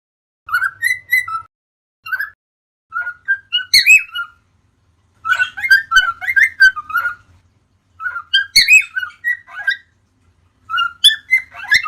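Cockatiels whistling and chattering in about six short bursts of quick, warbling chirps, with brief silent gaps between them.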